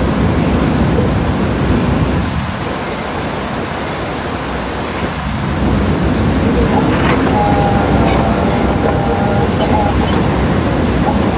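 Rebar bending machine running as it bends a thick ribbed steel bar: a loud, steady rumbling noise that eases off for a few seconds in the middle. A few brief whining tones come in during the second half.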